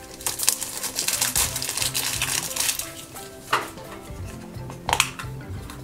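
Crinkly plastic blind-bag wrapping being torn open and handled, a dense crackling, with two sharper clicks about three and a half and five seconds in, over background music.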